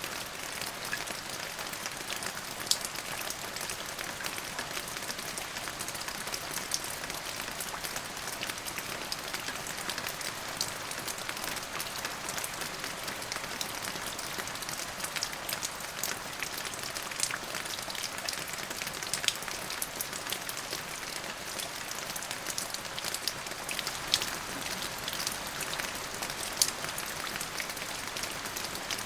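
Steady rain falling on a surface, a dense even patter with individual drops ticking sharply here and there.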